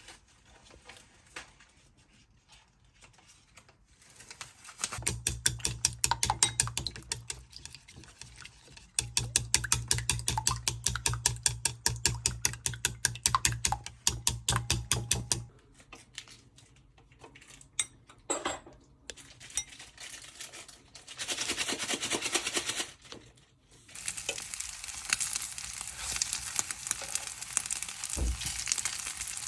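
Kitchen cooking sounds: about ten seconds of fast, even stirring strokes in a pot or bowl, then food sizzling in a frying pan over the last few seconds.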